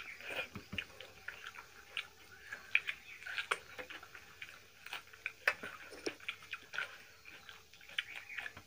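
Close chewing and lip-smacking of two people eating rice and curry by hand, an irregular run of wet smacks and clicks with a few sharper ones standing out.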